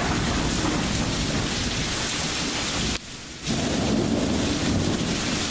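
Heavy thunderstorm rain coming down in sheets, driven by strong wind that rumbles on the microphone. The noise drops out briefly about three seconds in, then returns.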